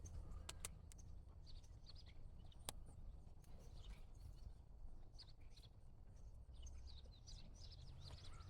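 Faint outdoor quiet with scattered small birds chirping, a few soft clicks near the start and about three seconds in, and a low steady hum underneath.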